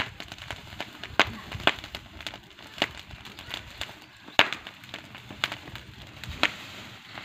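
Dry straw fire crackling as it roasts bunches of green chickpea plants, with sharp, irregular pops about a second apart and smaller crackles between them.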